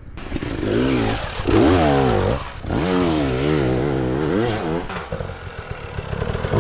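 Enduro motorcycle engine revving up and down over and over as the throttle is worked, with a short easing off about two and a half seconds in.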